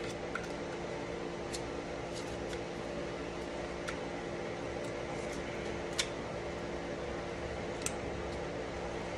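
Small sharp clicks of a Sig Sauer P320's fire control unit and polymer grip module being handled, a handful of them a second or two apart, over a steady background hum.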